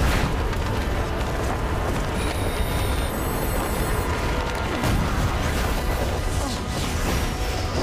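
Dramatic film soundtrack: a heavy, continuous rumble with rushing whoosh effects layered over orchestral score, with a sharp hit at the start.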